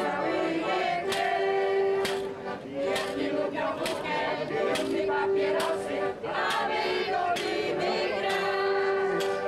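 A group of voices singing together in long held notes, with sharp percussive beats about once a second keeping time.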